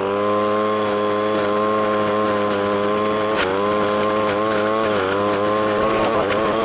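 Echo ES-250 Shred 'N' Vac's two-stroke engine running at full throttle in vacuum mode, sucking up leaves into its original collection bag. The engine note is steady, with a brief dip in pitch twice as leaves load the intake, and a couple of sharp clicks.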